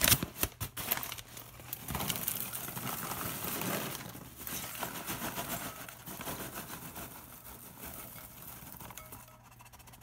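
Popped microwave popcorn being shaken out of its paper bag into a bowl: the paper bag crinkles and rustles and the popcorn patters into the bowl. A few sharp clicks come in the first second, and it grows quieter toward the end.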